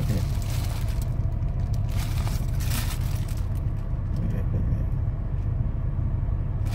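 Steady low rumble of a car, heard inside the cabin. Brief rustles of the burger's paper wrapper come at the start and again about two and a half seconds in.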